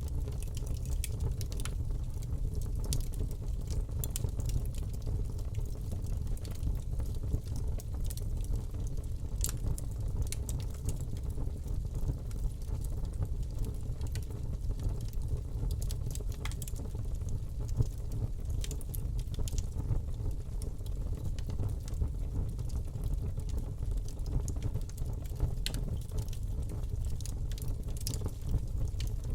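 Fireplace fire burning: a steady low rumble of flames with frequent, irregular sharp crackles and pops from the burning wood.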